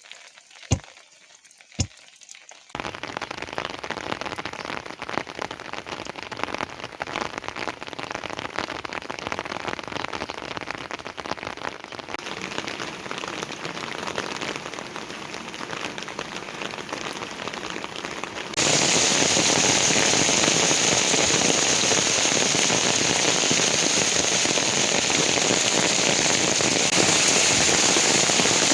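Heavy rain falling, a dense steady hiss. It starts suddenly about three seconds in, after a couple of sharp knocks, and jumps louder about two-thirds of the way through.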